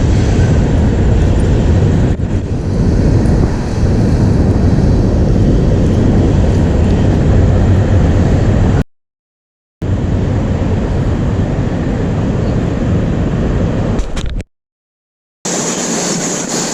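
Steady loud rumble of wind buffeting the microphone over rushing river water, broken twice by about a second of dead silence.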